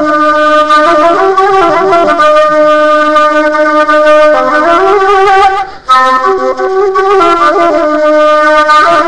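Background music: a reedy wind instrument plays a slow, ornamented melody of long held notes with quick turns between them. It breaks off briefly near the middle and picks up again.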